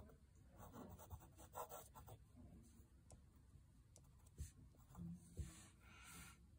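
Faint scratching of a paint-loaded ruling pen's metal nib drawing strokes across paper, in short, broken strokes.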